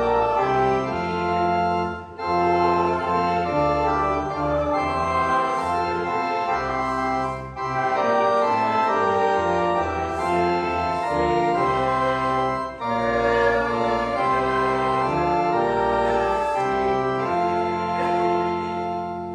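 Church organ playing sustained chords that change every second or so, in phrases with short breaks between them.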